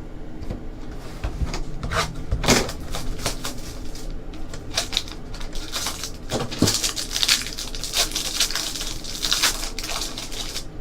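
Trading cards being handled: irregular clicking and rustling as cards are flipped through and set down, busiest in the second half.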